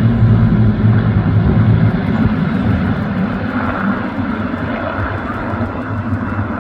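Piston aero engines of a large formation of Spitfires and Hurricanes (Rolls-Royce Merlin V12s) flying past: a loud, steady low drone that eases off a little after about two seconds as the formation moves away.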